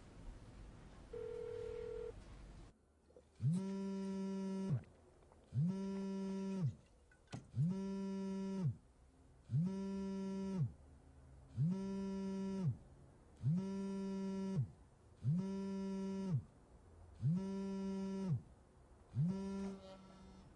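A cell phone on vibrate buzzing with an incoming call: nine evenly spaced buzzes, each about a second long and about two seconds apart. A brief steady phone tone, like a ringback, sounds about a second in.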